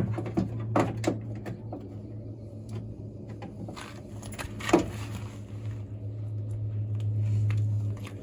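Scattered clicks, knocks and rattles of the door lock actuator and its linkage being worked back into place inside a Ford Excursion door, over a steady low hum.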